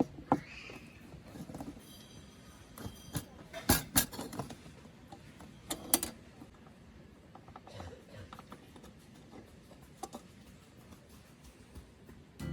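Objects being handled: scattered clicks and knocks with a few light metallic clinks, the sharpest about four and six seconds in.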